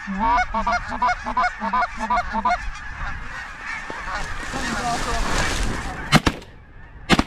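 Rapid goose honking, about four or five short calls a second for the first two and a half seconds. A rushing noise follows, then two sharp cracks near the end.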